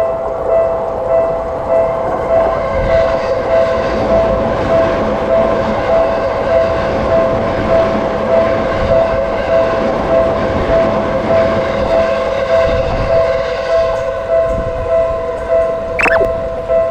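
Japanese railroad crossing warning bell ringing over and over at about two dings a second, with a train rumbling past underneath. A brief falling whistle-like tone comes near the end.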